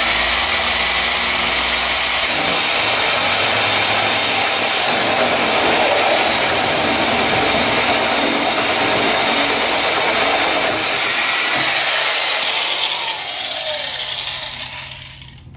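Large old corded electric drill running a hole saw through the bus's aluminium side panel: a loud, steady grinding whine of the saw cutting metal. About twelve seconds in the cutting stops and the drill motor winds down, its pitch falling as it fades.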